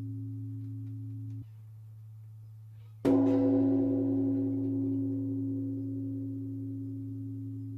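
Large Korean Buddhist bronze temple bell (beomjong) ringing. A deep, steady hum carries through from an earlier stroke, and one of its higher tones cuts off abruptly about a second and a half in. About three seconds in the bell is struck again, and a bright stack of ringing tones slowly dies away over the low hum.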